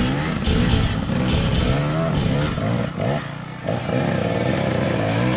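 Two-stroke dirt bike engine revving up and down in quick blips, with a short drop when the throttle is rolled off about three seconds in.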